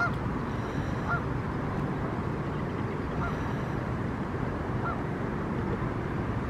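Geese honking: four short single calls spread a second or two apart, over a steady low background rumble.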